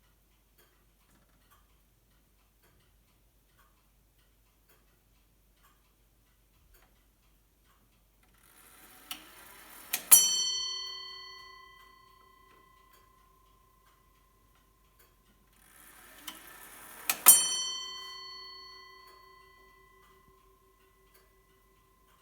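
Antique Frisian wall clock: its movement ticks faintly, then twice the strike train whirs briefly and the hammer hits the bell once, each stroke ringing out for several seconds.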